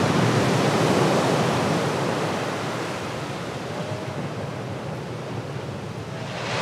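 Ocean waves breaking on a reef, a steady rushing wash of surf, loudest in the first second or so and easing off a little after.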